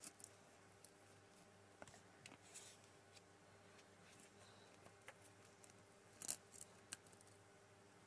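Faint, scattered clicks and crackles of a knife blade cutting down through a glazed chocolate cake topped with candy sprinkles, the sharpest crack about six seconds in.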